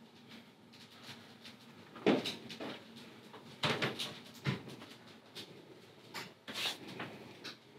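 A handful of short knocks and clatters in a small room, the loudest about two seconds in, then a cluster around four seconds and another near the end.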